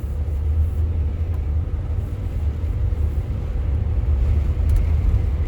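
Steady low road rumble and tyre noise of a car driving, heard inside the cabin.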